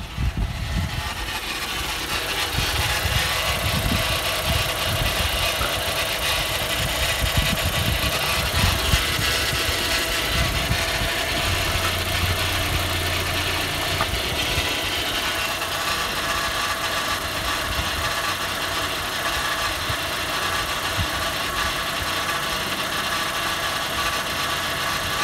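Audi A4 B5's 1.6-litre four-cylinder ADP petrol engine idling steadily in the engine bay.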